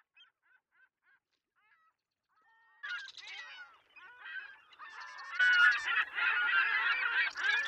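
A flock of gulls calling: a few faint, scattered calls at first, then from about three seconds in many overlapping calls that grow loud in the last couple of seconds.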